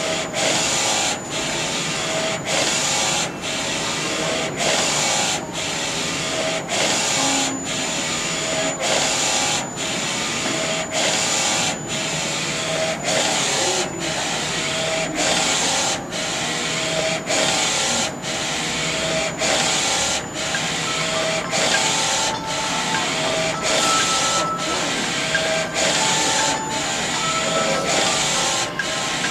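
NC-610A direct-to-garment textile printer's print-head carriage shuttling back and forth over the T-shirt platen as it prints. Each whirring pass lasts about a second, with a short break at every reversal, and a thin high whine runs through.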